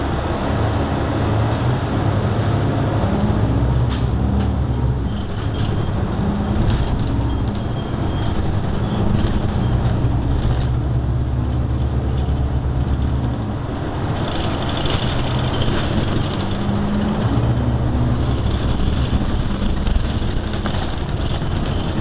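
Cabin ride noise of a New Flyer XD60 articulated diesel bus under way: a low engine drone that shifts in pitch every few seconds over steady road noise.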